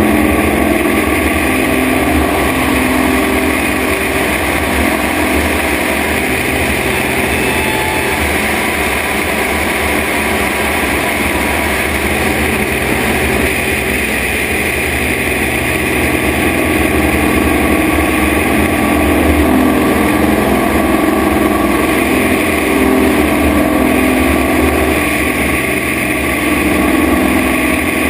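Christen Eagle aerobatic biplane's piston engine and propeller running at power in flight, with rushing airflow over the tail-mounted microphone; the sound is steady, swelling and easing a little as the plane manoeuvres.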